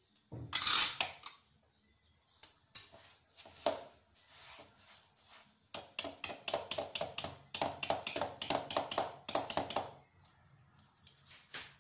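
Whisk beating a thick semolina, egg and oil batter in a ceramic bowl, quick even strokes several times a second scraping and knocking against the bowl, strongest from about six to ten seconds in. Near the start there is a short rustling burst as sugar is tipped into the batter.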